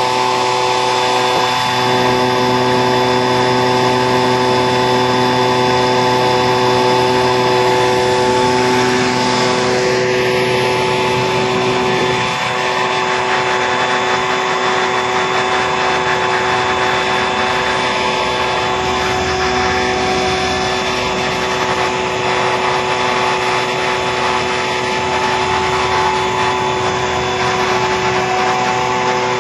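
Gold Exorcist gold recovery machine running steadily: a continuous motor hum with several steady tones over a noisy wash.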